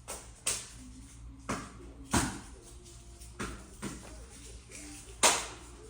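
About six sharp clacks and knocks at irregular intervals: hard objects being handled and set down, with a low steady hum underneath.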